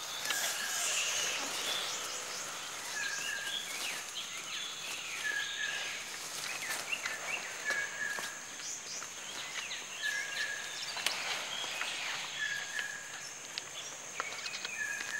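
Tropical forest ambience: a steady high insect drone, with a short, level-pitched call repeating about every two and a half seconds, and scattered faint clicks and rustles.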